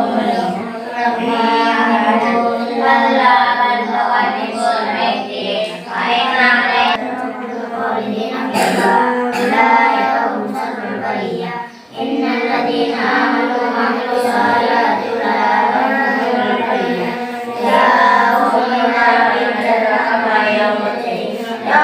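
Children's voices reciting the Quran aloud in Arabic in a chanting voice. The recitation runs on with a short break about twelve seconds in.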